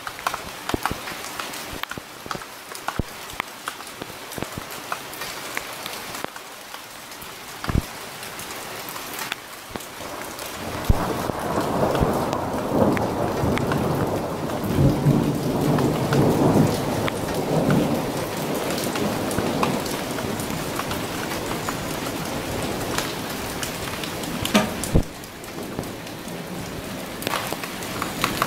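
Steady rain falling, with sharp drops pattering close by. About ten seconds in, a long low rumble of thunder swells and rolls on for several seconds before dying away.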